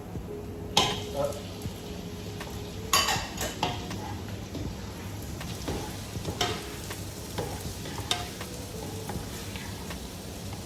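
Shrimp sizzling in a hot pan with sautéed garlic, onion and ginger as they are stirred, the utensil clacking and scraping against the pan again and again.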